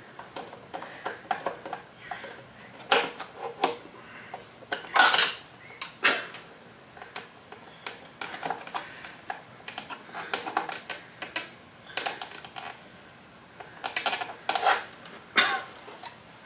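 Hand work on Honda Ruckus scooter parts: irregular clicks, clinks and knocks of small metal and plastic parts being handled, loudest about five seconds in.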